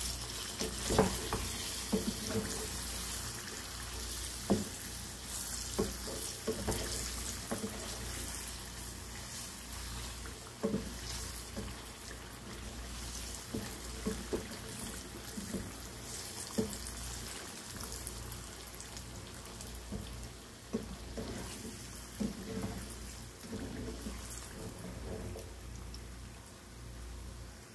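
Oil sizzling steadily around sweet potato slices frying in a pot with caramelizing sugar. A wooden spatula knocks and scrapes against the pot many times as the slices are turned.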